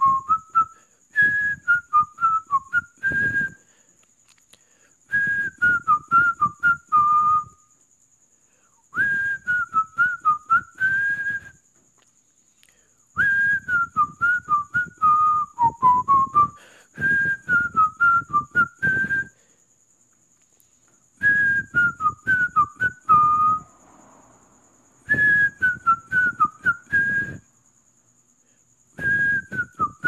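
A person whistling a cheerful, bouncy tune in short repeated phrases of a couple of seconds each, with brief pauses between them. The pitch hops up and down with quick turns.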